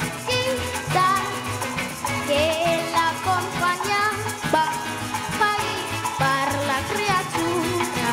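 Parang music sung in Spanish: a young girl singing lead over a band, with maracas shaking a steady rhythm under the melody and repeating bass notes.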